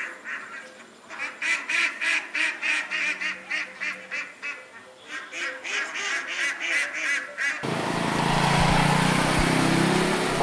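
A flock of domestic ducks quacking in a rapid run of short calls, several a second, with a brief lull midway. About three-quarters of the way through the quacking stops and background music takes over.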